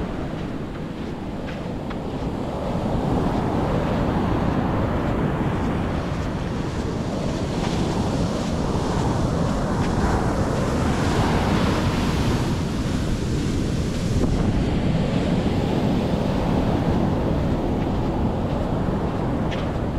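Sea waves washing onto the beach, a steady rushing wash that swells and eases every few seconds, with wind rumbling on the microphone.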